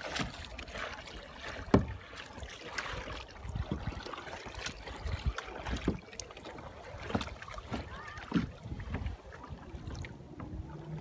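Kayak paddling on calm sea water: paddle blades splashing and water lapping against a plastic sit-on-top kayak, with wind buffeting the microphone. Irregular sharp splashes come through, the loudest about two seconds in.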